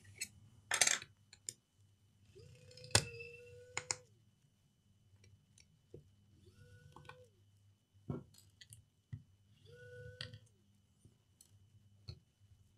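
Cordless electric precision screwdriver running in three short bursts, each spinning up, holding a steady whine and winding down, as it backs out the laptop battery's screws. Sharp clicks and knocks of the tool and parts being handled fall between the runs.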